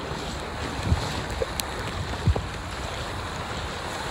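Strong wind buffeting the phone's microphone over a rough, breaking sea, with a couple of short low thumps about a second in and again past two seconds.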